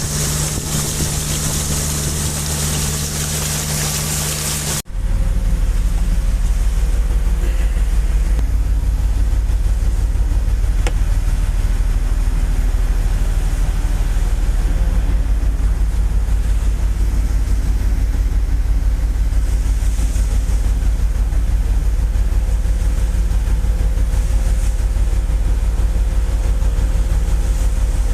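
A boat's engine running steadily, heard on board. About five seconds in there is an abrupt cut, after which the engine drones deeper and louder with a fast, even pulse.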